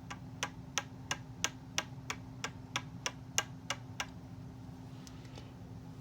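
About a dozen sharp clicks, evenly spaced at about three a second, that stop about four seconds in. A steady low hum runs underneath.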